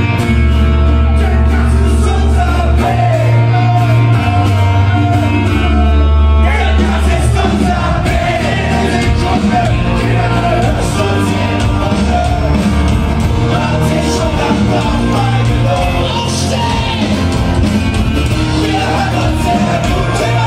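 Punk rock band playing live in a large hall, heard from the audience, with singing and shouting over the music. The first six seconds are carried mainly by a steady bass line, then the full band comes in and the sound fills out for the rest.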